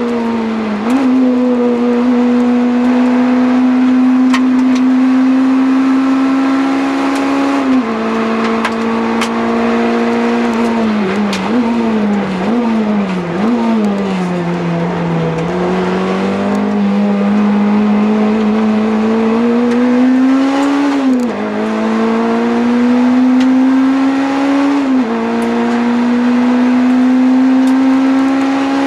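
Honda DC5 Integra's four-cylinder engine at full throttle, heard from inside the cabin. Its pitch climbs steadily and drops sharply at upshifts about 8, 21 and 25 seconds in. Around 11 to 14 seconds in it falls and jumps several times as the car brakes and shifts down for a corner, then climbs again.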